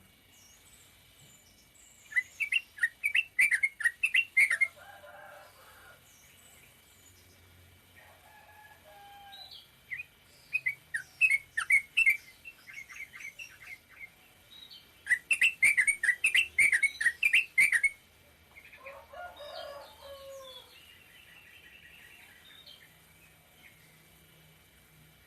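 Yellow-vented bulbul (trucukan) singing short rapid-fire bursts of quick, sharp chattering notes. There are three bursts, each two to three seconds long, with softer, lower calls between them.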